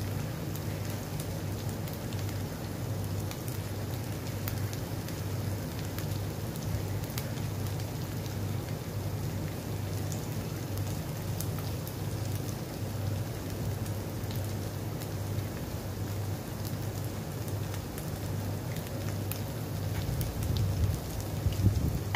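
Seafood paella cooking in its pan on the stove: a steady sizzle with scattered small crackles, over a low steady hum.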